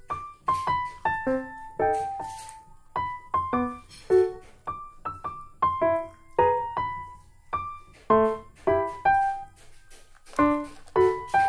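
Background piano music: a melody of single struck notes, each ringing and fading, several a second.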